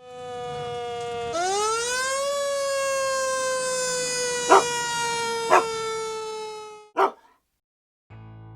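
Siren wail: a steady pitch for about a second, then a jump and rise, then a slow fall over several seconds before it cuts off. Two short sharp sounds come about a second apart in the middle. A single click follows, then a short silence, and music starts at the very end.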